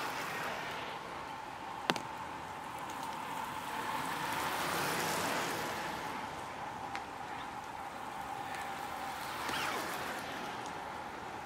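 Bicycle tyres hissing on wet asphalt as road cyclists ride past, swelling as each rider comes close, once in the middle and again later, over a steady background hiss. A single sharp click about two seconds in.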